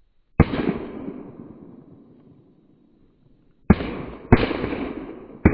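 Four shotgun shots: one about half a second in, then three close together near the end. Each shot is followed by a long, fading echo.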